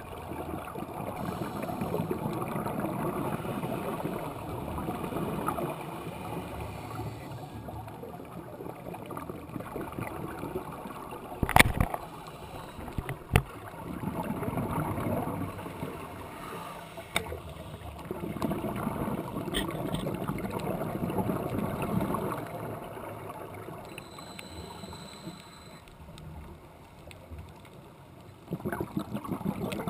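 Scuba diver breathing through a regulator, heard through an underwater camera housing: spells of exhaled bubbles lasting a few seconds, with quieter pauses between breaths. Two sharp clicks stand out near the middle and are the loudest sounds.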